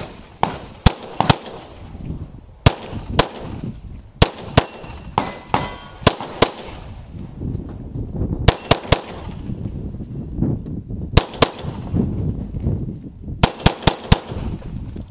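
CZ 75 SP-01 Shadow pistol fired in quick pairs and short strings with pauses between, each shot sharp and loud. Steel targets clang and ring when hit.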